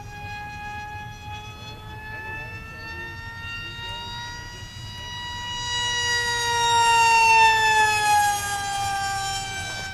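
Electric RC jet flying by: its brushless in-runner motor and small APC pusher propeller make a high whine. The whine grows louder and slowly higher from about five seconds in, peaks around seven seconds, then drops in pitch as the plane passes.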